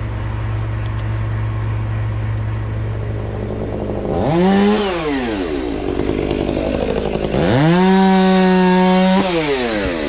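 Chainsaw revved briefly about four seconds in, then run up and held at full throttle for nearly two seconds before dropping back. A steady low engine hum runs underneath.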